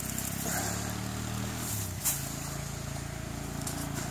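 An engine running steadily with a low hum, its pitch wavering briefly in the first two seconds, with one sharp click about two seconds in.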